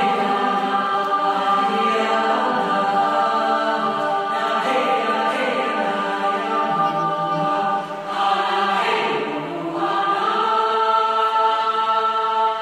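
Choral chant from a stage musical's opening: a choir singing long held notes over the theatre's sound system, dipping briefly about eight seconds in and then swelling again.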